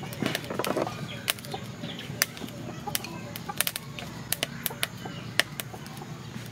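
Chopsticks clicking and tapping against a metal tray and bowl as stir-fried noodles are lifted and served, in irregular sharp clicks.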